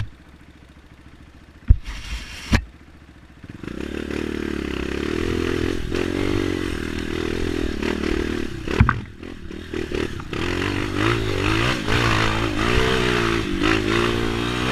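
Honda CRF 230 single-cylinder four-stroke dirt-bike engine running quietly, with two sharp knocks about two seconds in, then revved hard and held at high revs. Near the end its pitch rises and falls repeatedly as the bike works up a slippery climb on a bald rear tyre.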